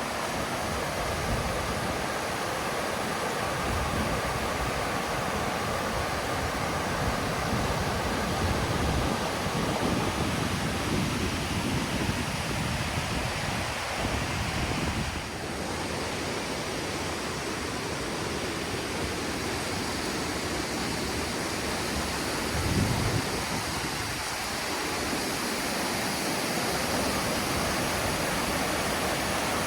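Steady rushing of water from a waterfall, a continuous even wash of noise with no voices.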